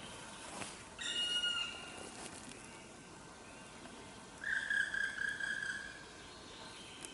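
Forest birds calling: two loud, drawn-out calls, a short one about a second in and a longer one about four and a half seconds in, over faint background birdsong.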